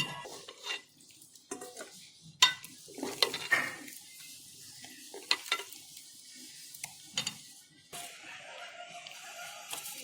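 Metal ladle stirring in a pot of kheer, with a few separate sharp metal clinks spread over several seconds.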